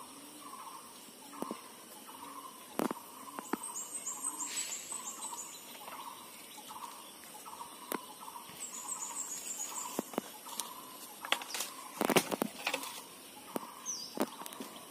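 A long bamboo pole knocking and rattling among mango-tree branches, with a few sharp knocks and a cluster of louder ones near the end as the fruit is struck loose. Behind it, a bird calls over and over about twice a second, with brief high twittering of small birds twice.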